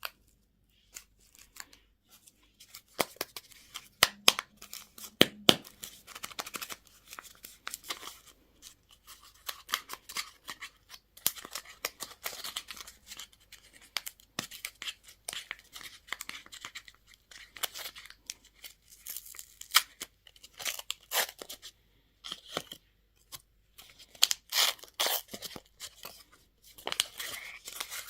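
Candy packaging being unwrapped: plastic wrappers crinkled and torn open, with many sharp clicks and snaps, the loudest a few seconds in.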